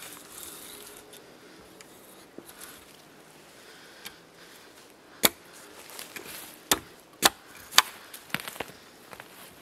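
A small hatchet chopping into dry wood. Four sharp, loud blows land over about three seconds, starting about halfway in, followed by a few lighter knocks.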